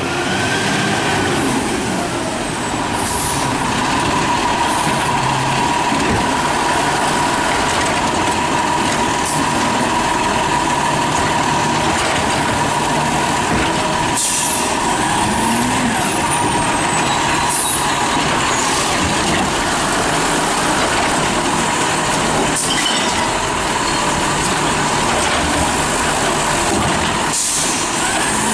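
Diesel engine of a Peterbilt 320 side-loader garbage truck running, with a steady whine through the first half and several short air-brake hisses as the truck pulls up and stops at the bins.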